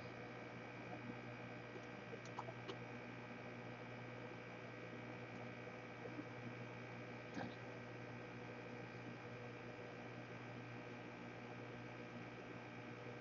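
Steady electrical hum from bench equipment, with a few faint light clicks.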